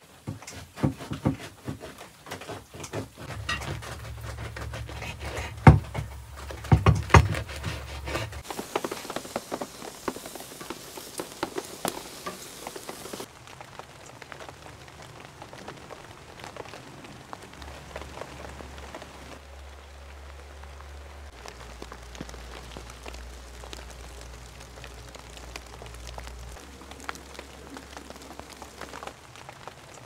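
Rain pattering steadily, with a run of sharp knocks and clicks in the first several seconds, the loudest two about six and seven seconds in.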